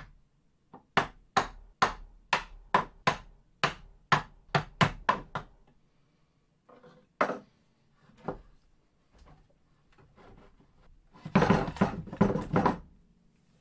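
Wooden mallet striking the head of an antique Ixion hand-crank drill press about a dozen times in a steady run, roughly three blows a second, then a couple of single knocks, knocking the head loose on its column. Near the end a burst of rattling and scraping as the head is worked off the column.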